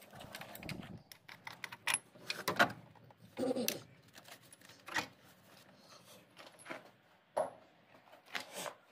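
Irregular metallic clicks and clinks of hand tools working on an engine: a socket ratchet on a bolt and metal parts knocking together, with a few brief ringing taps.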